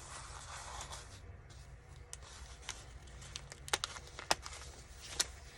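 Paper rustling as the pages and paper belly band of a handmade journal are handled, with a few short, sharp clicks and taps from the paper and card over the next few seconds.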